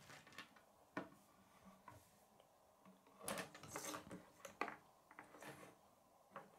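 Faint clicks and taps of plastic K'nex pieces being handled on a wooden table as a rod is pushed into a connector hub. The clicks are scattered, with a busier patch of clicking and rustling about halfway through.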